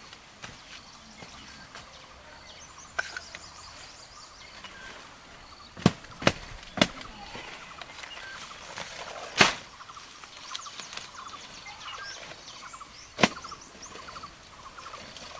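Sharp chops of a knife cutting through cabbage stalks: three quick ones close together about six seconds in, then single chops near the middle and near the end, over faint rapid chirping.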